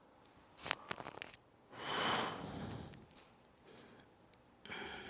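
Clothing rustling and soft scuffs against the floor as a person moves through a lunge-to-hamstring stretch, with a longer breathy rush about two seconds in, and another brief rustle near the end.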